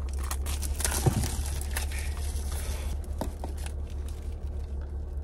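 Sonny Angel blind-box packaging being opened by hand: the foil wrapper crinkling and tearing, with the cardboard box handled, making irregular rustles and clicks over a steady low hum.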